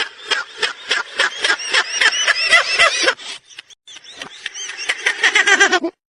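A sound effect played in reverse: a rapid run of short pitched pulses, about four or five a second. It breaks off briefly just past halfway, resumes faster, and cuts off suddenly near the end.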